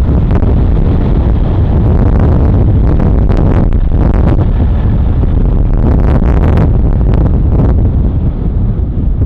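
Steam-hauled express train passing at speed, with the A1 Pacific locomotive 60163 Tornado accelerating hard. It makes a loud, steady rumble with irregular sharp clatters as the coaches go by, heard through wind noise on the microphone.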